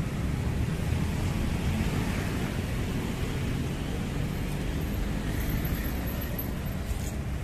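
Passing road traffic, cars and motor scooters, as a steady low rumble.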